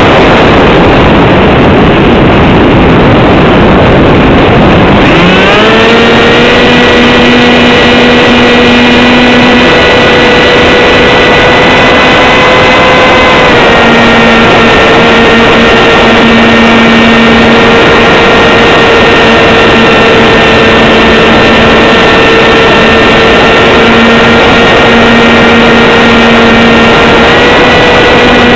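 Z84 flying wing's electric motor and propeller in flight, under a constant rush of wind. About five seconds in, the motor whine climbs quickly and then holds a steady pitch. It dips slightly a little past the middle and steps back up near the end.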